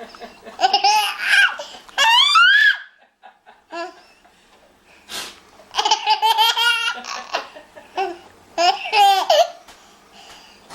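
A baby laughing in high-pitched, gliding bouts: one burst, a pause of about two seconds, then two more bursts.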